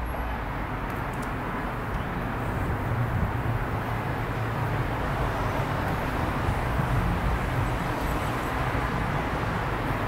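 Honey bees buzzing in a mass from an open hive: a steady low hum that grows slightly louder as a bee-covered frame is lifted out.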